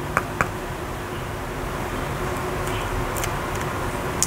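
Light clicks and taps from handling a boxed tarot card set: two quick clicks at the start and two more near the end, over a steady hiss.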